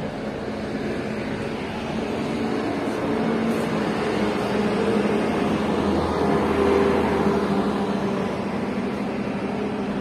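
A road vehicle passing, its engine and tyre noise swelling to loudest about seven seconds in, then fading.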